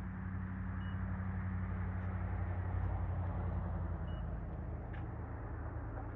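A vehicle engine running with a steady low hum that swells a little and eases off, and two short high beeps about three seconds apart.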